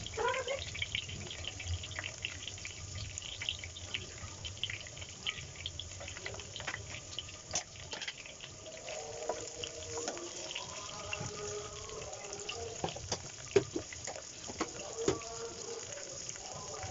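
Kitchen tap water running into a sink, with scattered clinks and knocks throughout.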